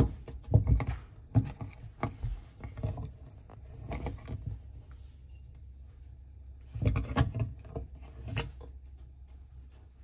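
Plastic parts clicking, knocking and scraping as a hand fishes a broken plastic spoon piece out of a dishwasher's sump. This debris, caught between the motor and the filter basket, is the cause of the dishwasher's clicking and grinding. The knocks come irregularly, in a run over the first few seconds and a second cluster near the end.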